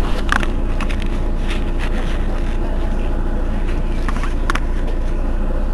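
Mercedes-Benz Citaro Facelift city bus engine idling steadily, with a few faint clicks over the low rumble.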